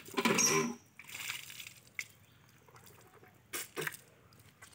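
Hand pump being worked, water pouring and splashing onto a stone slab for under a second. It then drops to a few faint drips and small splashes.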